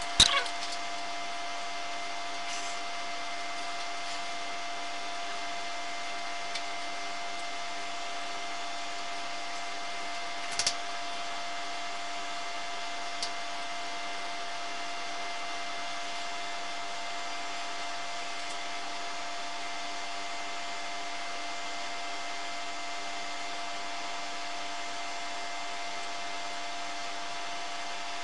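Steady hum with several fixed whining tones at an even level, with a few faint knocks: a brief one at the start and another around the middle.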